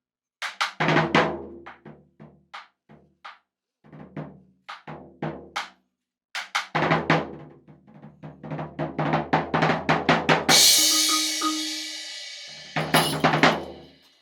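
Percussion duo playing drums in quick phrases of struck hits, broken by short rests. A cymbal crash rings out and fades about ten and a half seconds in.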